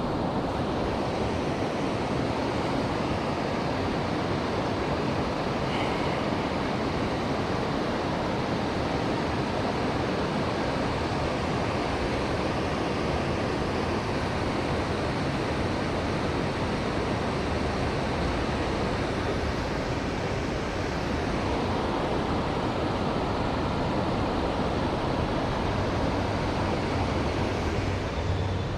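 Steady rushing of flowing river water, an even noise that never lets up; a low hum joins near the end.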